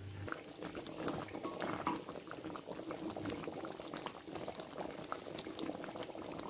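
Chicken kurma gravy in a wok bubbling at the boil, with many small irregular pops of bursting bubbles.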